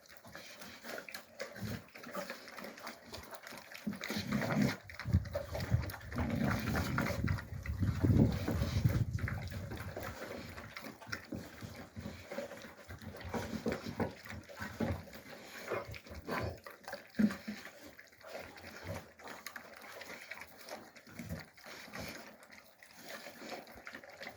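Alabai puppies making small grunting noises, loudest from about four to ten seconds in.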